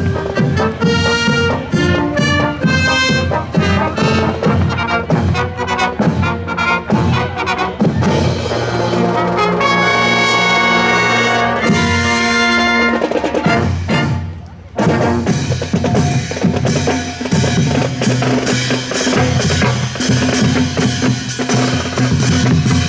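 High school marching band playing a march: trumpets, trombones and other brass over marching snare and bass drums. The band holds a long brass chord about halfway through, breaks off briefly, and then the drums come to the fore.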